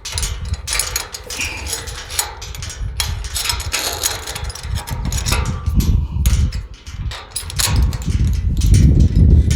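Metal parts clinking and clicking as a slide bolt latch bracket and its nuts are fitted onto a tubular metal gate, over a loud, uneven low rumble.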